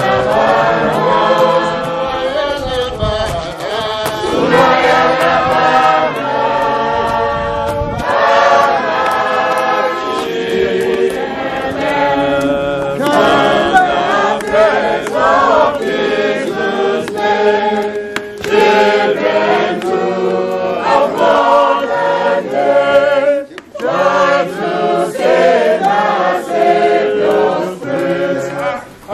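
A congregation singing a hymn together in unison, many voices on held notes, with a brief break about three-quarters of the way through.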